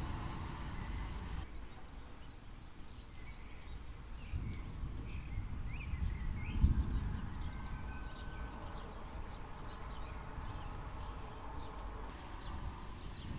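Birds chirping in short calls over a low, uneven rumble of the thunderstorm, which swells about four and seven seconds in.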